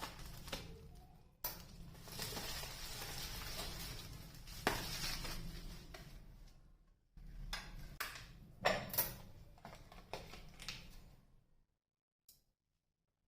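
Kitchen handling sounds: dishes and utensils knocking and clinking, with a stretch of steady hiss early on, then falling quiet near the end.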